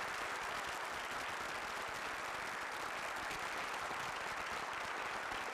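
A large lecture-hall audience applauding, steady and even throughout.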